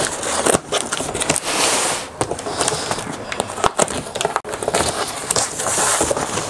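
Cardboard box and its packing being handled and rummaged through: scraping and flexing of cardboard flaps, rustling and crinkling of wrappings, with many irregular clicks and knocks. Two stretches of louder rustling come about a second and a half in and near the end.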